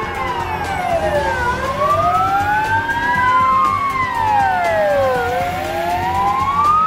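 Two or more emergency-vehicle sirens wailing at once, each slowly rising and falling in pitch, out of step with one another so the tones cross.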